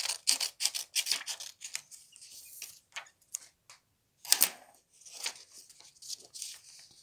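Scissors snipping through a folded sheet of paper in quick crisp cuts, about four or five a second, for roughly the first two seconds, then paper rustling. One sharp knock comes about four and a half seconds in, and hands rub and crease the paper near the end.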